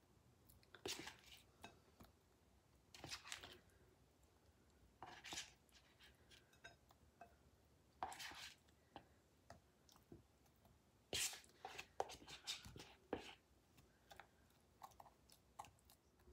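Silicone spatula scraping and tapping a mixing bowl as wet, sugared berries are spooned out, in short separate scrapes with a busier cluster of scrapes and taps about two-thirds of the way through.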